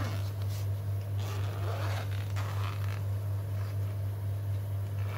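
Zipper of a black nylon UNI-T carrying pouch being pulled open in a few scratchy rasps during the first three seconds, with the nylon fabric rubbing. A steady low hum runs underneath.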